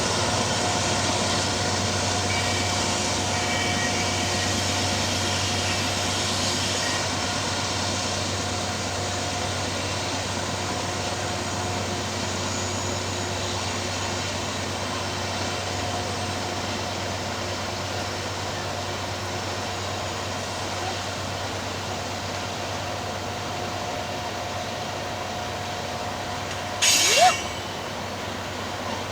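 Loaded freight train rolling past on a steep grade: a steady rail rumble that slowly fades. A brief, loud, sharp noise cuts in near the end.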